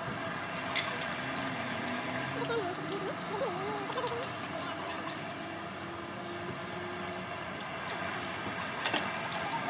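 Hot oil sizzling steadily in a street stall's deep fryer, with a couple of sharp clicks, one about a second in and one near the end.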